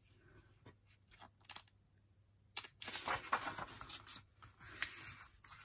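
Turning the page of a paperback picture book by hand: a few faint ticks, then from about halfway a scratchy rustling and sliding of paper with small clicks.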